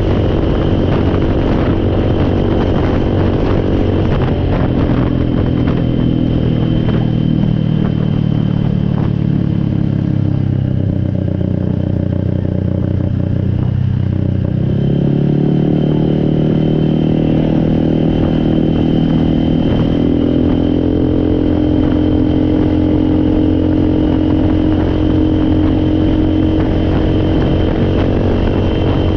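Four-wheeler (ATV) engine running under way. Its pitch drops about four seconds in, then climbs again about halfway through and holds, with a steady high whine alongside.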